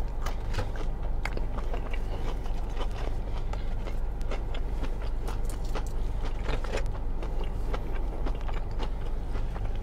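Close-up chewing of battered fried fish, with irregular small wet clicks and smacks from the mouth. Underneath is the steady hum of the car's air conditioning running on full blast.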